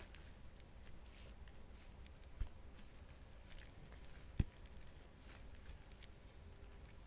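Nitrile-gloved hands working a sticky mix of butter and dashi fish powder: faint sticky, squeaky glove sounds and small crackles, with two soft low thumps about two seconds apart.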